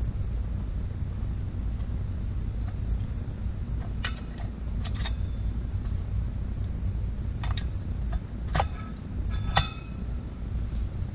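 Small metal parts clicking and clinking as a chainsaw clutch drum (spur sprocket) is fitted onto the crankshaft over its greased bearing. There are about seven light knocks, some ringing briefly, over a steady low hum.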